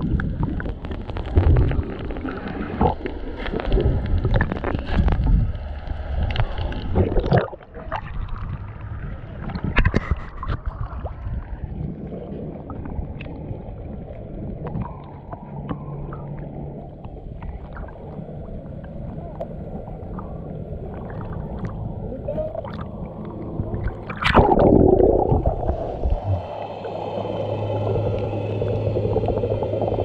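Muffled sloshing and gurgling water heard through a waterproof action camera as it moves in and out of the sea while snorkeling, with splashes knocking against the camera. A loud splash comes about 24 seconds in, and a steady low hum sets in soon after and runs on to the end.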